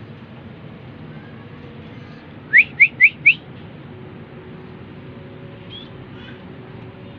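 White-rumped shama (murai batu) giving four quick rising whistles in a row, less than a second in all, followed a few seconds later by a couple of faint short calls, over a steady low hum.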